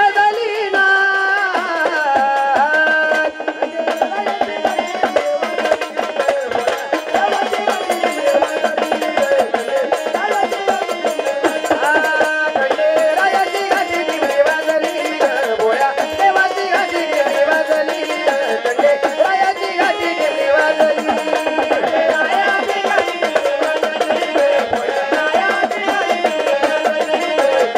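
Marathi gondhal folk music: a melody line that holds and steps between notes over a steady, dense rhythm of hand drums, with no break.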